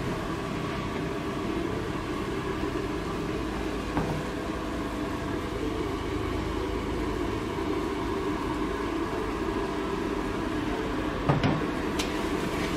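Char kway teow stir-frying in a carbon-steel wok over a high gas flame: the burner and the sizzling noodles make a steady noise. A metal utensil knocks against the wok once about four seconds in and twice near the end.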